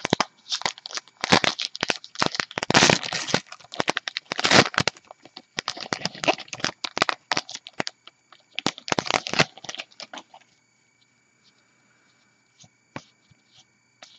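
The wrapper of a 2014 Topps Gypsy Queen baseball card pack is torn open and crinkled in the hands: a loud, dense crackling that stops about ten seconds in. After that there are only a few faint clicks as the cards are handled.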